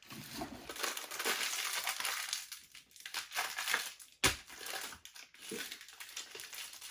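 Crinkly blind-box packaging being crushed and pulled open by hand, with a sharp snap about four seconds in.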